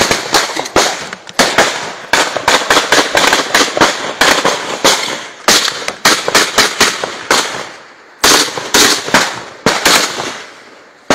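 Rapid gunfire: dozens of shots fired in quick succession, in runs with short breaks, each shot ringing on briefly.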